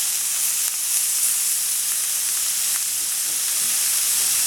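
Chicken breast pieces and halloumi cheese frying in a hot pan, with a steady, even sizzle.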